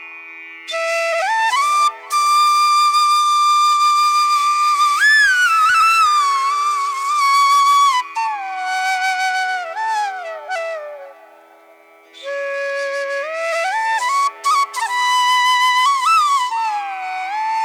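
Background music: a solo flute melody with bending, sliding notes, played in phrases with short breaks, the longest about eleven seconds in.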